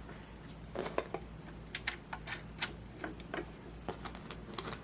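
Scattered light clicks and clinks of hand tools and small parts being handled while a replacement roller is fitted to a MaxiClimber Classic climber, irregular and about a dozen in all, over a faint low hum.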